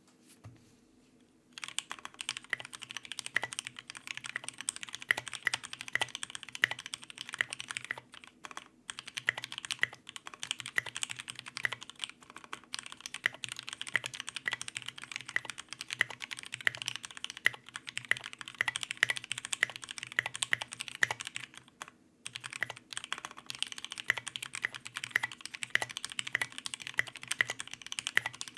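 Fast, continuous typing on a custom 60% mechanical keyboard (Tofu60 with O-ring mod, brass plate, lubed Tealios v2 linear switches): a quick run of keystroke clicks. It starts about a second and a half in and pauses briefly twice.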